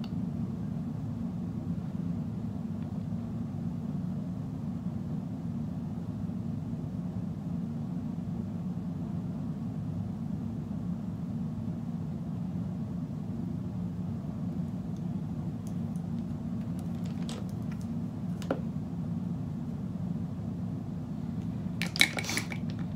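Steady low background hum, with a few faint clicks late on and a short burst of sharper clicks near the end as small makeup items are handled.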